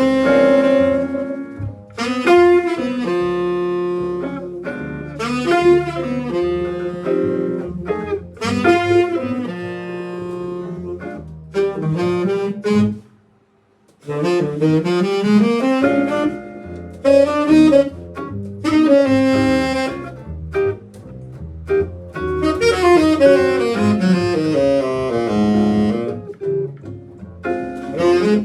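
A small band rehearsing a jazzy tune, with a saxophone playing the lead melody over bass. The band stops for about a second halfway through, then comes back in.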